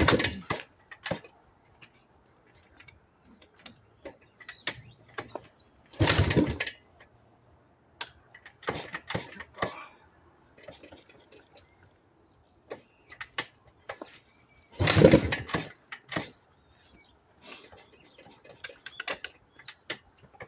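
1990 Yamaha YZ490's two-stroke single being kick-started three times, at the start, about six seconds in and about fifteen seconds in. Each kick spins the engine over briefly without it catching, and the kick lever makes light clicks and scuffs between kicks. The bike is hard to start after sitting unused for a month.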